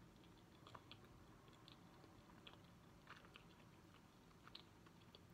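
Faint chewing of a bite of chocolate éclair pie with the mouth closed: scattered small mouth clicks at an uneven pace.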